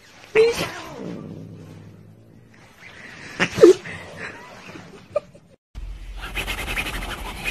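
Domestic cat meowing: a short call just after the start, then a louder call falling in pitch about three and a half seconds in.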